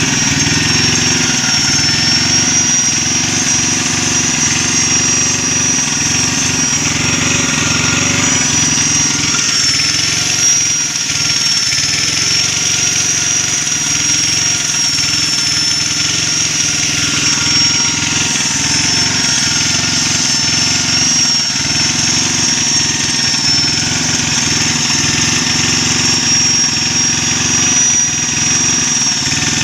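Grinder running steadily with a high whine, used to sharpen the teeth of a chainsaw chain.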